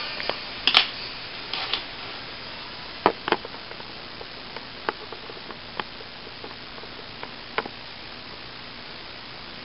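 Handling noise: scattered sharp clicks and taps, about eight in all, the loudest about a second in and a pair around three seconds in, from a hand-held magnifying loupe and camera being moved over a stamp album, over a steady hiss.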